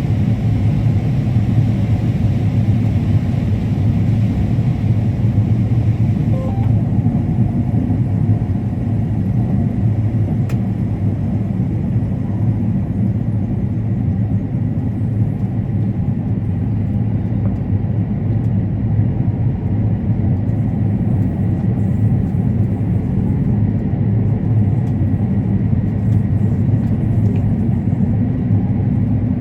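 Combine harvester running steadily, a continuous low drone of engine and machinery.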